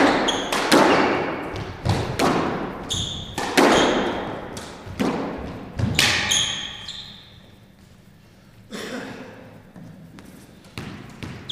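A squash rally: the ball cracks off racquets and the walls about eight times in the first seven seconds, each hit echoing around the enclosed court, with short squeaks from shoes on the wooden floor. The rally stops about seven seconds in, followed by a few softer knocks of the ball.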